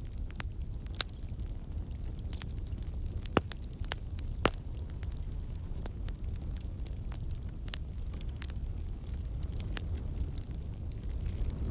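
Bonfire burning with a steady low rumble, the wood crackling and popping irregularly, with two louder pops about three and a half and four and a half seconds in.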